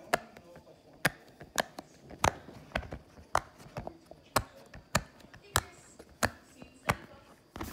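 Bubbles of a silicone pop-it fidget toy being pressed through one by one with a finger, each giving a short sharp pop, in a steady rhythm of about two pops a second.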